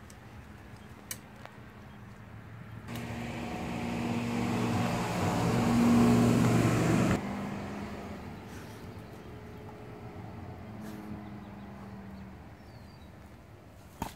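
A motor vehicle's engine passing by: it grows louder from about three seconds in, drops sharply about seven seconds in, then fades away.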